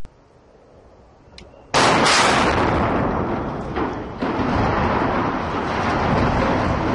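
Explosive charges going off in the controlled demolition of a steel arch truss bridge: a sudden volley of blasts close together about two seconds in. A loud rumble follows as the steel spans fall, with a second surge about four seconds in.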